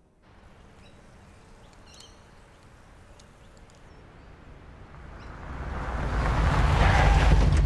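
A car approaching, its engine's low hum and road noise growing steadily louder through the second half until it is loud near the end.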